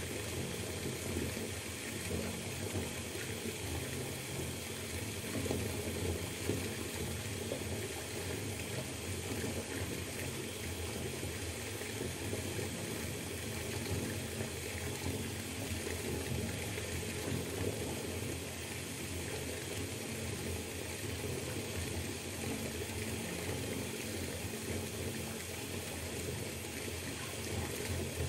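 Water running from a tap into a bathtub as it fills, a steady, unchanging splashing flow.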